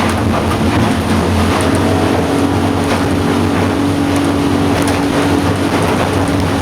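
Yamaha F350 5.3-litre V8 four-stroke outboard running steadily at high revs, around 5,200 RPM, driving the boat at speed, with rushing water and wind noise over its even hum.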